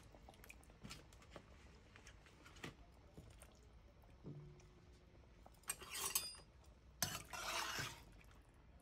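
A few faint soft taps as chopped tomato pieces drop into the pot. About six seconds in, a metal spoon clinks against the stainless steel pot, then scrapes and stirs through the tomato braising liquid for about a second.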